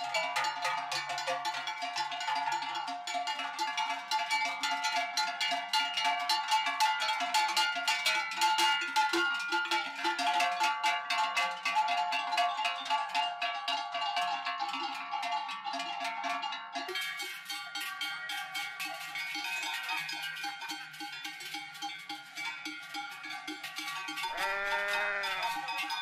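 Large cowbells hung on the necks of walking cows, clanging continuously in overlapping, ringing strokes. The clanging is dense for most of the time and thinner near the end. A single short animal call comes near the end.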